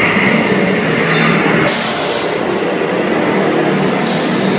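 Dark-ride vehicle rumbling along its track with the ride's electronic soundtrack playing over it, and a short burst of hiss a little under two seconds in.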